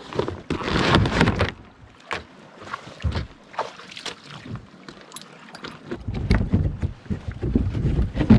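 Vinyl dry bag rustling and knocking as it is handled and carried over rocks, with scattered clicks and scrapes of footsteps on stones. A loud rustle comes about a second in, and wind rumbles on the microphone near the end.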